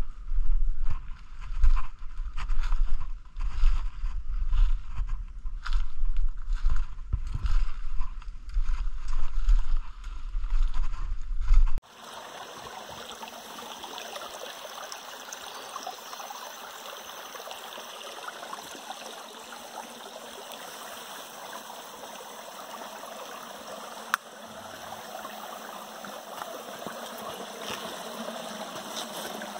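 Irregular thuds and rustles of footsteps and camera handling while walking through forest leaf litter. About twelve seconds in, this gives way abruptly to the steady rushing of a small stream flowing over rocks, with one sharp click midway.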